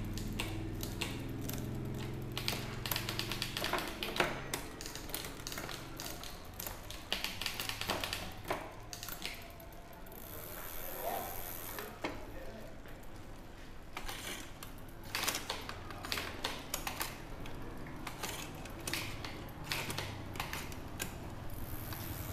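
Irregular mechanical clicking and ticking from a bicycle's parts being worked by hand, coming in clusters, over a low steady hum.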